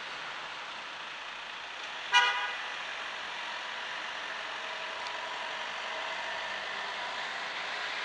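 A single short car-horn toot about two seconds in, over a steady background hiss.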